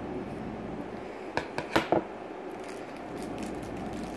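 Scissors snipping the corner off a small bag: a few quick cuts about a second and a half in.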